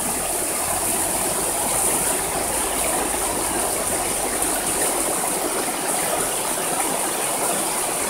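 Shallow, rocky mountain river flowing steadily over stones, a continuous rush of running water.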